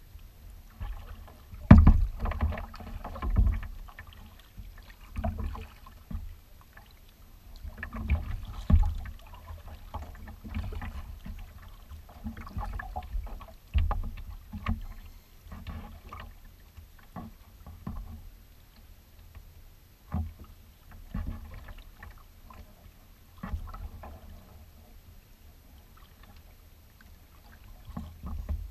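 Kayak paddling on choppy water: paddle strokes splashing and water slapping against the hull in irregular bursts.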